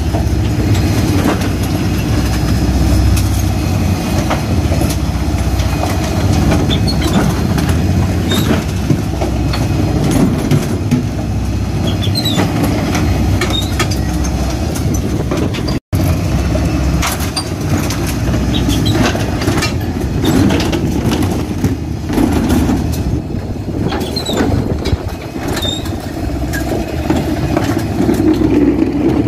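Faun Rotopress refuse lorry running steadily at the kerb, with the clatter and knocks of plastic wheelie bins being hooked onto the rear bin lifter, tipped and wheeled over the road.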